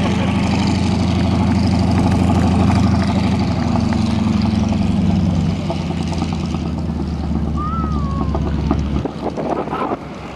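North American T-6 Texan's nine-cylinder Pratt & Whitney R-1340 radial engine running at low power as the plane taxis after landing; the steady drone eases down partway through and drops off sharply about nine seconds in.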